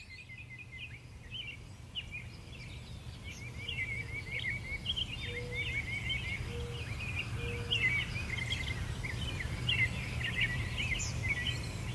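Many small birds chirping and twittering in quick, overlapping calls over a steady low hum, growing louder over the first few seconds, with a few short low notes in the middle.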